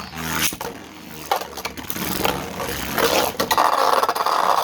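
Beyblade spinning tops scraping and clashing in a stadium, with a run of sharp hits over a continuous grinding scrape that gets loudest near the end.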